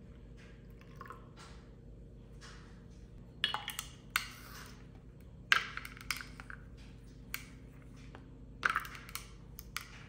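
Ice cubes cracking and popping in a glass of freshly poured iced americano: a few sharp cracks at irregular moments, some in quick little clusters, as the ice settles.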